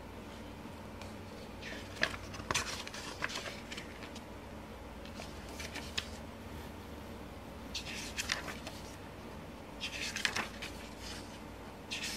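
Paper pages of a photobook being turned by hand: short rustles and swishes, about four of them a few seconds apart.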